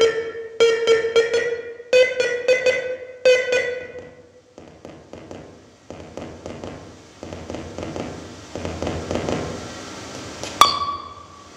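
Experimental electronic sound from a homemade magnetic-switch feedback machine run through small mixers. For about the first four seconds, bright pinging clicks repeat in a rhythmic loop over a steady held tone. Then comes a rough, swelling noise as the mixer knobs are turned, and a single sharp click with a short ringing tone near the end.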